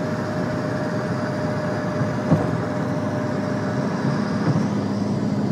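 Yamaha R6 inline-four with an Akrapovič exhaust running at a steady cruising speed under heavy road and wind noise, a steady drone with a short knock a little over two seconds in.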